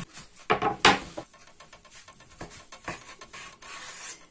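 A couple of sharp knocks as the pork loaf and wooden cutting board are handled and set down, followed by faint scattered ticks and soft scraping of a kitchen knife starting to slice through the cured pork near the end.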